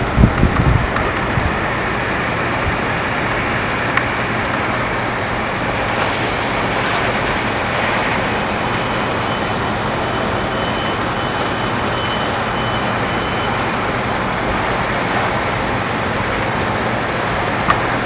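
Steady noise of aircraft engines running, with a few low thumps in the first second.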